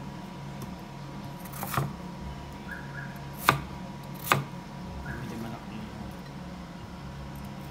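Chef's knife cutting through a peeled potato and knocking on a wooden chopping board: three sharp knocks, about two, three and a half and four and a quarter seconds in, over a steady low hum.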